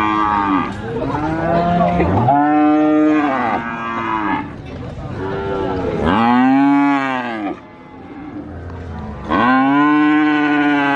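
Cattle mooing: three long moos, each rising and then falling in pitch, with fainter calls from other cattle between them.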